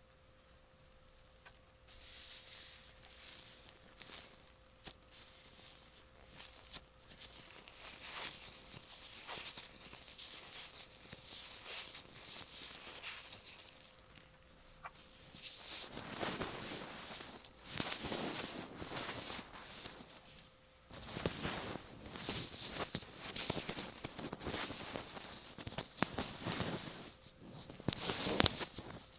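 Latex-gloved fingers rubbing, tapping and pulling stickily on an earphone microphone right at the mic, giving a dense, crackly rustle. It starts about two seconds in, grows louder and fuller about halfway, breaks off briefly, and ends with a sharp tap.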